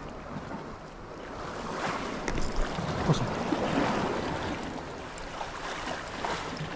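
Sea waves washing against shore rocks, swelling louder in the middle, with a few sharp clicks.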